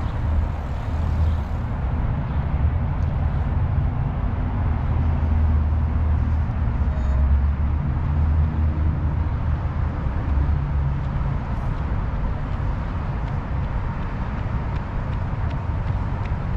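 Steady low rumble of wind buffeting the microphone of a camera on a moving bicycle, fluttering unevenly.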